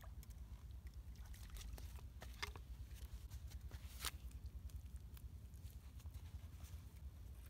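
Faint steady low rumble with scattered light clicks and taps, the sharpest one about four seconds in.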